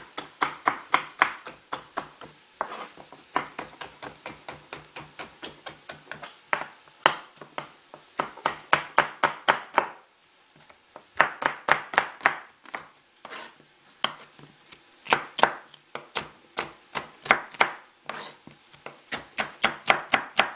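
Chef's knife slicing bell peppers into strips on a wooden cutting board: runs of quick, sharp knife strokes against the board, several a second, with short pauses between runs, the longest about halfway through.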